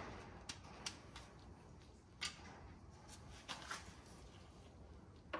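Faint, scattered clicks and taps from a hand wrench working on an oil pickup bolt on a bare engine block, over low room tone.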